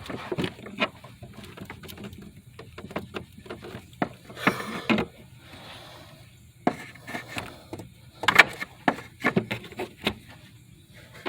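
Scattered clicks, knocks and short scrapes of hands and tools working at a stuck part on the old blow-off valve, which has been glued on and won't come off.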